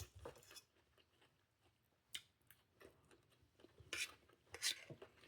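Faint chewing of a crunchy green salad: a few scattered soft crunches and mouth clicks, the loudest two about four seconds in and shortly after.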